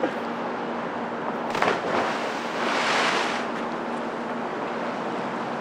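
A cliff jumper hitting the river water below: a dull thump about a second and a half in, then about a second of rushing splash, over steady wind and water noise.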